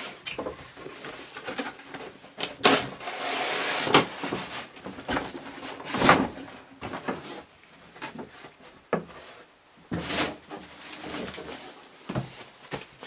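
Cardboard packaging being handled and pulled apart: inner boxes sliding and scraping out of a tight outer box, with a series of knocks and clatters.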